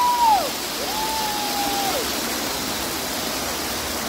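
Steady rushing hiss of cold-fire ground fountains spraying sparks. Over it, a held high note slides down about half a second in, and a second, shorter one slides down near two seconds.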